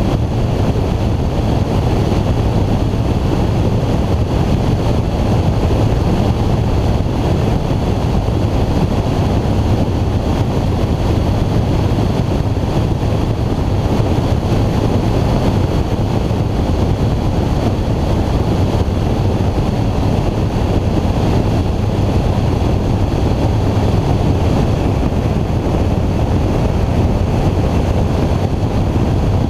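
Ikarus C42 ultralight in flight, heard from a camera outside on the wing: steady airflow rushing over the microphone with the low, even drone of the engine and propeller underneath.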